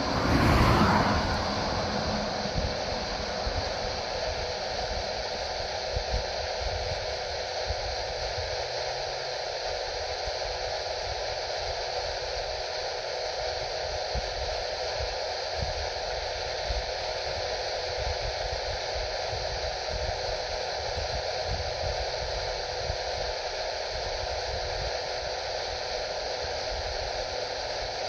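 Radio receiver giving out a steady hiss of static with a faint hum underneath. The noise swells louder for the first two seconds, then settles.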